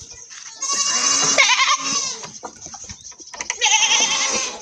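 Goats bleating: two long, wavering bleats, the first about half a second in and the second near the end.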